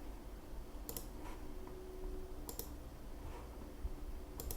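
Computer mouse clicking three times, about a second and a half apart, each click a sharp double tick of press and release.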